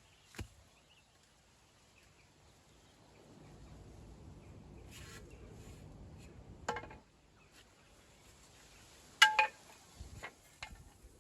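Stone knocking against stone, as stones are handled and set in a wall: a few sharp clinks spread out, the loudest about nine seconds in, ringing briefly.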